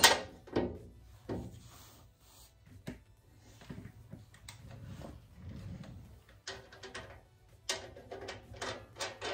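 Steel tool-cart parts clinking, tapping and scraping as a bolt is held through a bracket and a nut is fitted by hand. A sharp metal knock at the very start is the loudest; near the end comes a quick run of clicks.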